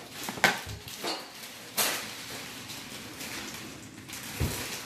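Kitchen clatter: a few sharp clicks and knocks of dishes and utensils in the first two seconds, then a dull thump near the end.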